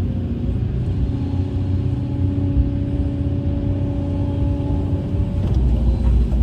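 Heavy earthmoving machine's diesel engine running with a steady low rumble, with a steady tone over it from about a second in that stops about five seconds in.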